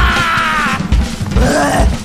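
Cartoon background music with a bass drum beat about every half second, under a high melodic line that slides in pitch.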